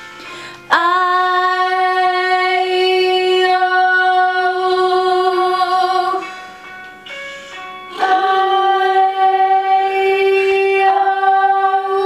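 A woman singing two long held notes at the same steady pitch. The first starts about a second in and lasts about five seconds; the second starts about eight seconds in and is held for about four seconds, with a few quieter sung notes between them.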